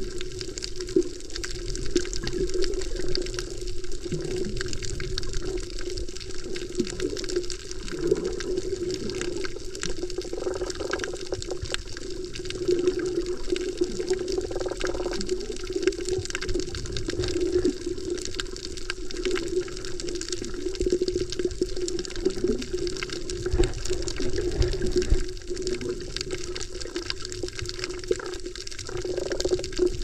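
Moving water heard from below the surface: a muffled, steady wash with an unchanging low hum underneath and occasional low rumbles.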